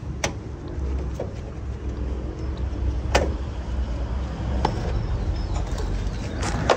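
Hand tools and plastic trim on a car's front end clinking and clicking: a few sharp knocks scattered through, the loudest near the end, over a steady low rumble.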